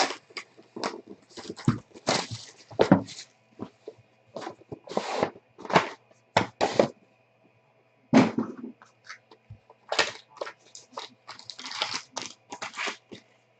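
Crinkling and tearing of the plastic wrap on trading card packs and their box as the packs are pulled out and opened, in irregular bursts with short gaps.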